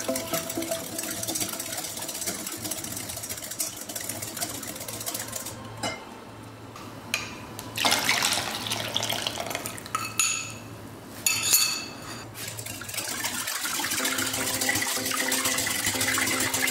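A wire whisk beating a runny egg batter in a glass bowl, then liquid poured into the bowl with splashing about eight seconds in and again a few seconds later, before whisking resumes.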